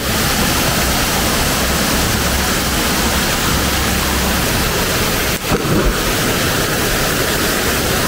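Waterfall pouring into a deep rock pool: a steady, loud rush of falling water.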